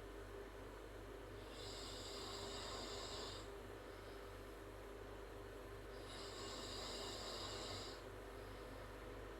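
A girl snoring with her mouth open: two long, hissy snoring breaths about four seconds apart, over a steady low hum.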